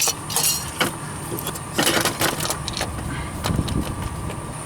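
A few light metallic clicks and clinks of tools and engine parts being handled, with a short rattling cluster about two seconds in.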